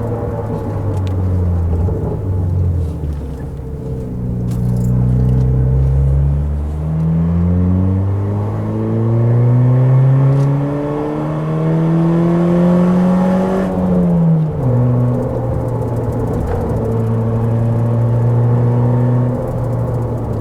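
Car engine under way, heard from the car: the revs climb steadily for about seven seconds, drop sharply around two-thirds of the way through as the driver shifts or lifts off, then run at a steady pitch.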